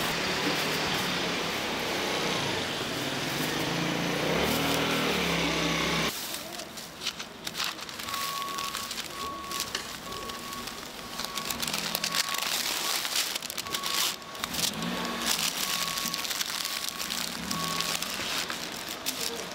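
Background street noise, changing abruptly about six seconds in. From about eight seconds in, a high electronic beep repeats roughly once a second for some ten seconds.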